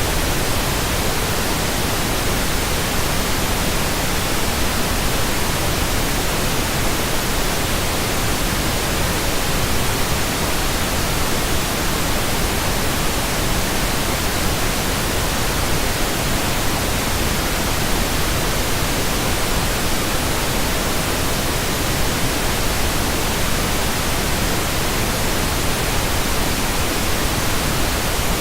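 Pink noise test signal: a steady, even hiss at constant level, faded in just before and out just after.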